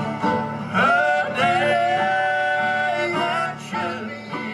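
Bluegrass band playing the close of a song: a long held high note rings over acoustic guitar and plucked strings, and the music fades near the end.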